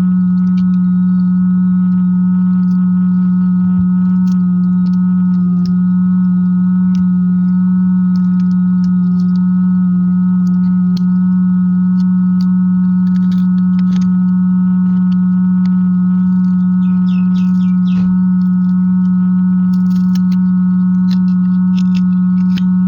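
Hot air rework station blowing at full air with a steady, loud hum, and scattered small clicks of an opening tool prying at a phone's back panel.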